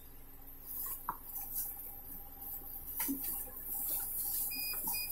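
Faint rustling and light knocks of a cardboard box, a cardboard insert and plastic wrap being handled and packed, with a few small clicks. Near the end a faint high tone comes and goes.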